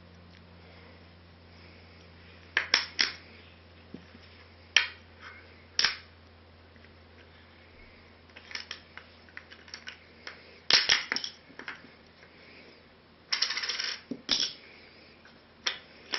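Wooden toy pieces clacking: pegs, rings and blocks of a wooden shape-sorter stacking board knocked against the base and each other in scattered sharp clicks, with a short rattle about two-thirds of the way through.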